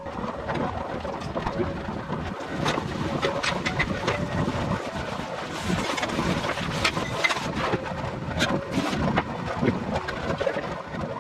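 Covered pot of soft tofu heating on a portable gas stove: a steady rush of burner flame and bubbling liquid, with many small clicks and pops.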